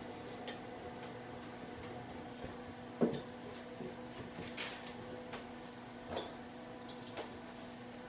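Scattered light clicks and knocks of objects being handled, the loudest about three seconds in, over a steady low electrical-sounding hum.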